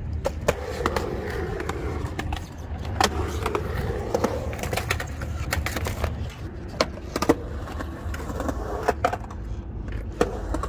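Skateboard wheels rolling on a concrete bowl with a steady low rumble, broken by sharp clacks of the board and trucks striking concrete. About six seconds in the board shoots out from under the rider in a bail and clatters on its own.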